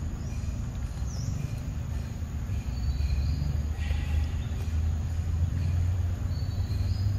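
Outdoor ambience: a steady low rumble, growing a little louder about three seconds in, with faint high bird chirps scattered through it.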